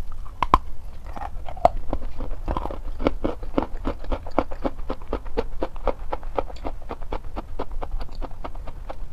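A bite snapping a piece off a bar of wet chalk about half a second in, then crunchy chewing of the chalk, about five crunches a second.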